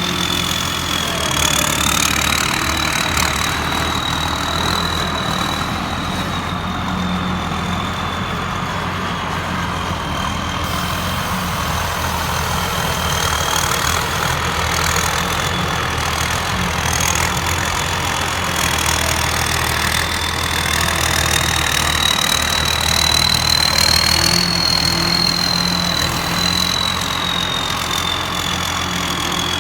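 Heavy diesel engine running steadily at low speed, with a thin high whine that wavers slowly in pitch.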